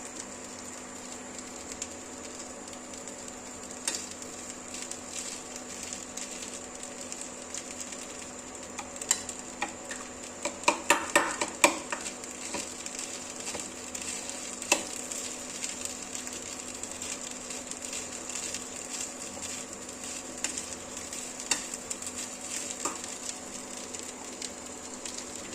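Vegetable fried rice sizzling in a pan as it is stirred, with a metal spatula clinking and scraping against the pan. A quick run of loud, ringing clinks comes about ten to twelve seconds in.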